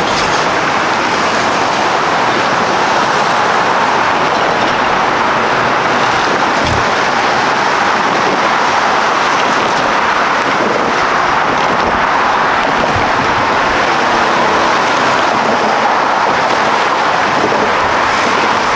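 Road traffic driving over a railroad level crossing: a steady noise of tyres and engines from passing cars and trucks.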